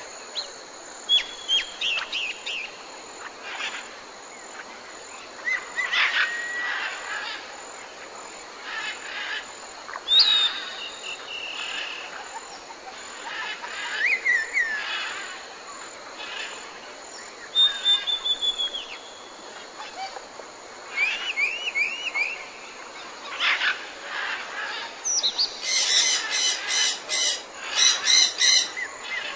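Wild birds singing and calling: scattered short chirps, whistles and quick trills, then a fast run of loud repeated calls near the end.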